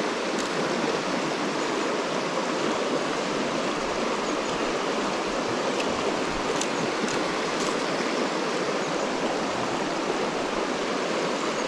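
Shallow stream running over a rocky riffle: a steady rush of moving water.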